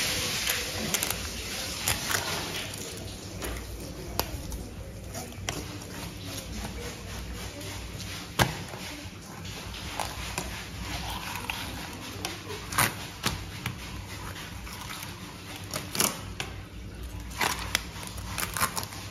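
Knife work while filleting sea bream: scattered sharp taps and knocks of the blade and fish on the cutting board, with a few louder knocks near the end, over a steady low hum.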